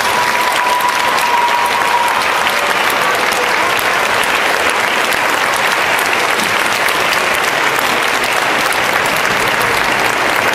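Audience applauding steadily, a hall full of hands clapping.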